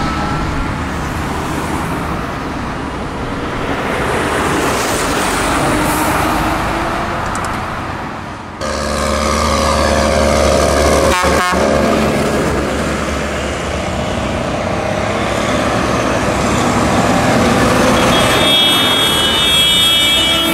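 Farm tractors driving past in a convoy, their diesel engines running with a steady low drone and tyre and road noise. The sound changes abruptly about a third of the way in. A high steady tone joins near the end.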